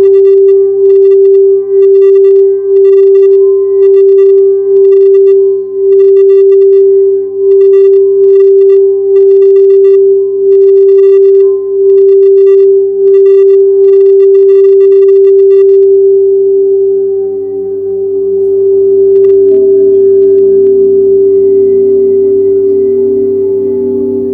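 Quartz crystal singing bowl rubbed around its rim, giving one steady pure tone that swells and dips about once a second. About two-thirds of the way through the rubbing stops and the tone rings on, with a second, lower bowl tone joining near the end.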